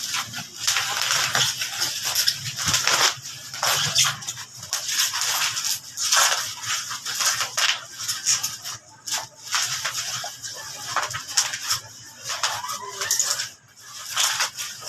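Packaging being handled and torn open, with irregular crinkling and rustling.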